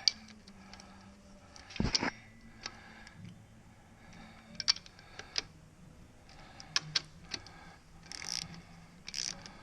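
Wrench and socket work on bolts: scattered metallic clicks and knocks, with a few short ratcheting rasps near the end, over a faint steady hum.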